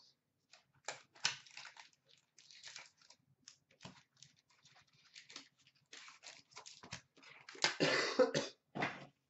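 Trading-card pack being cut open and its cards handled: short, irregular rustles and crinkles of the wrapper and cards, with the loudest burst of crinkling about eight seconds in.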